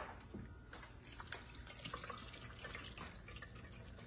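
Canned pineapple juice dripping and trickling through a metal colander into a stainless steel bowl as pineapple tidbits drain: faint, scattered drips.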